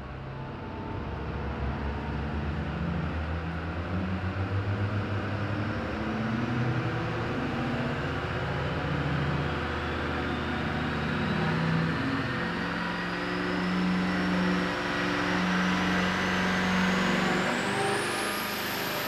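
Twin-turbo LB7 Duramax 6.6 L V8 diesel running under load on an engine dyno during a power pull. It grows steadily louder, with a high whine that climbs in pitch as the turbos build boost.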